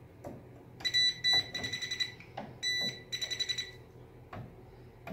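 Handheld non-contact voltage tester beeping in rapid, high-pitched pulses, in two runs of about a second each, with a few light taps between. The beeping signals that it is detecting live voltage in the panel wiring.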